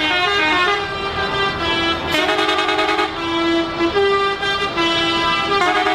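A truck's musical horn playing a tune: a run of loud pitched notes stepping up and down, some short and some held for about half a second.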